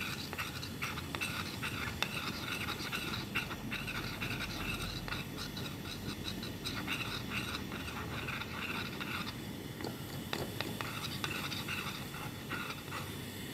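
A glass stirring rod scraping and lightly clinking round a porcelain dish as melted cocoa butter and bismuth subgallate are stirred together, in quick repeated strokes. It gets softer in the last few seconds.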